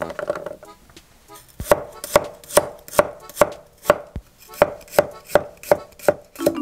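Chef's knife slicing garlic cloves on an end-grain wooden cutting board: a steady run of sharp knocks on the wood, about two and a half a second, starting about a second and a half in after a brief scuffle as the cloves are set on the board.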